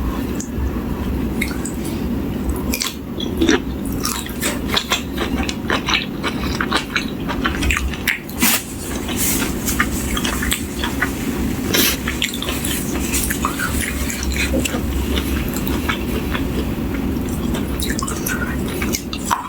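A person chewing food close to the microphone: wet mouth sounds with many short, irregular clicks and smacks, over a steady low hum.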